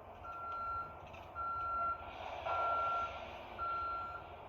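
A repeated electronic beep like a reversing alarm, one steady tone about once a second, four beeps in all, over a low hum and some rushing noise.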